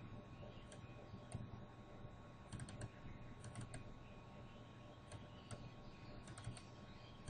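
Faint scattered clicks of a computer mouse, some in quick pairs and clusters, over a low steady hum.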